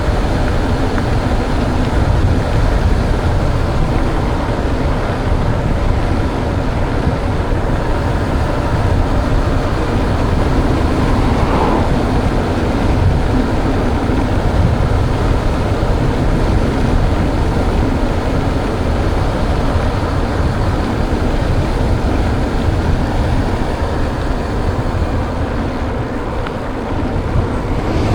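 Steady, loud rumbling rush of wind and tyre noise on a mountain bike's camera microphone while riding a trail, heaviest in the deep lows.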